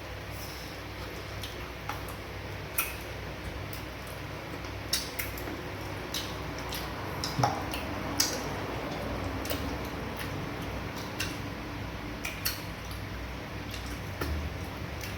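Eating at a table: scattered sharp clicks and taps of dishes and utensils, roughly one every second or two, over a low steady hum.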